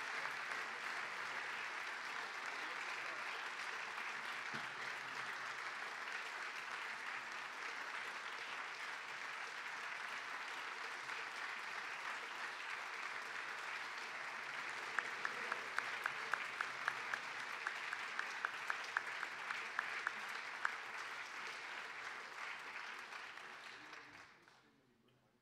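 A church congregation applauding steadily, with a stretch of louder, evenly spaced claps at about three a second in the middle. The applause dies away over the last couple of seconds.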